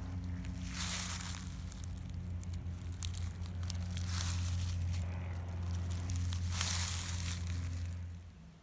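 Rustling and crinkling in three swells, with scattered clicks, over a steady low hum that stops near the end.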